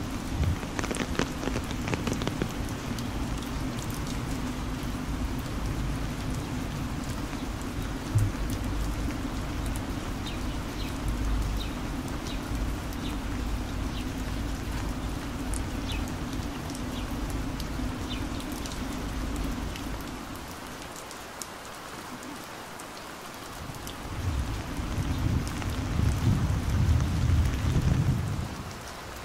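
Heavy rain falling, with scattered sharp drop hits. A low rumble under it fades away about twenty seconds in and returns, louder, a few seconds later.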